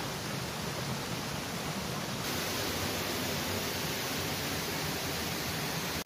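Steady rush of a creek and small waterfall: an even hiss with no separate events, its tone shifting slightly about two seconds in.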